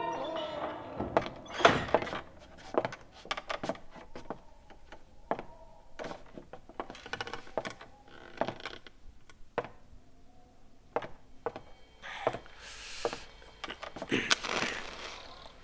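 Irregular knocks, taps and clicks of objects being handled in a small room, the loudest a sharp knock about a second and a half in. Two short rustling noises come near the end.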